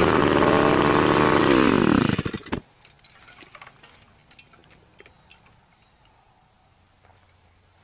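Earthquake mini cultivator's small Viper engine running at high revs as its tines dig into the soil, its pitch wavering, then sliding down and cutting off about two and a half seconds in. Faint footsteps and light clicks follow.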